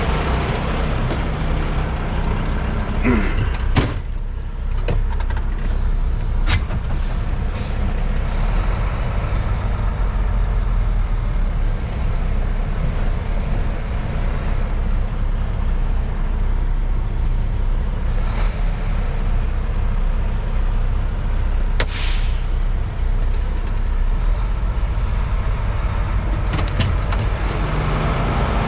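Semi-truck diesel engine running with a steady low rumble, with a few sharp knocks early on and a short burst of noise about 22 seconds in.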